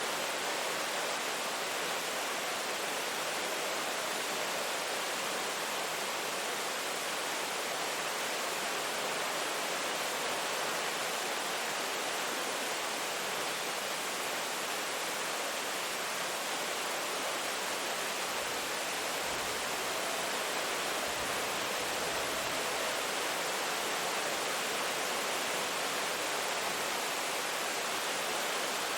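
Steady rain falling, a constant even hiss of many drops with no single drops or gusts standing out.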